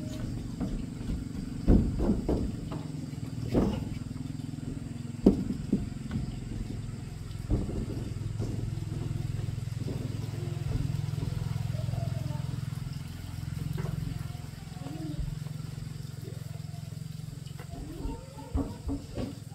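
A small engine running steadily with a low hum, with scattered knocks and clatter over it.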